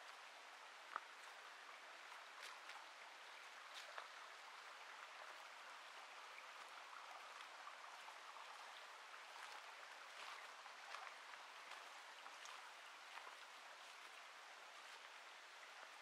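Faint, steady rush of a distant stream, with scattered light ticks and taps at irregular moments.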